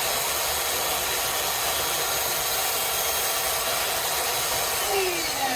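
Work Sharp electric belt knife sharpener running steadily as a knife edge is ground. Near the end it is switched off, and its pitch falls as the motor spins down.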